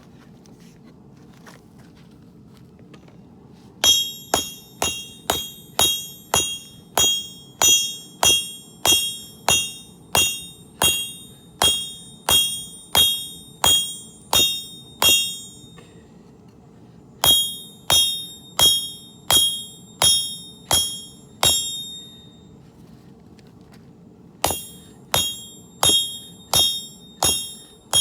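Hammer blows on a sword blade over an anvil, each strike ringing, in runs of steady blows about one and a half to two a second with short pauses between, as the steel blade is forged flat and drawn out.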